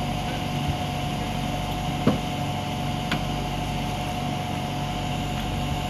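Vehicle engine idling steadily with a thin, constant whine over it, and a single short knock about two seconds in.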